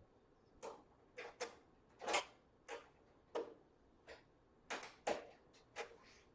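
Irregular clicks and light knocks, about a dozen, some in quick pairs, as screws are driven by hand to fit the sheet-metal back panel onto an electric stove.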